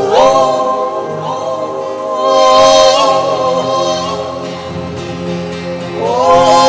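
Gospel worship music: voices singing long held notes over a sustained accompaniment, the pitch rising into a new chord at the start and again near the end.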